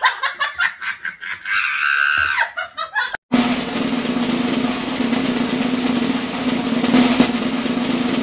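A quick run of sharp taps with a short high-pitched tone, then after a brief break a steady snare drum roll, added as a sound effect over the clip.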